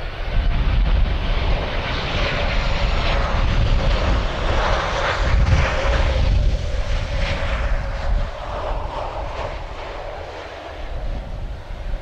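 Boeing 737-800's CFM56-7B jet engines on final approach, passing close at low altitude: a low rumble with a steady whine, loudest in the middle and easing off toward the end as the airliner nears the runway.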